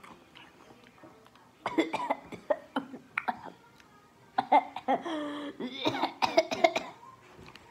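A boy coughing in several fits, the longest near the end with a drawn-out strained sound in the middle. The coughing is a reaction to a spicy Dorito.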